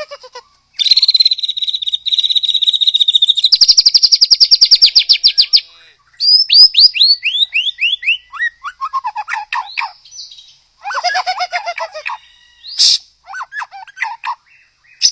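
White-rumped shama singing a long, varied song: a harsh, buzzy phrase, then a fast rattling trill of about a dozen notes a second, then a run of whistled notes that each slide down, stepping lower in pitch, followed by further chattering phrases.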